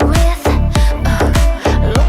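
Electronic dance music with a heavy, steady beat, about two beats a second, over falling bass notes and a melody.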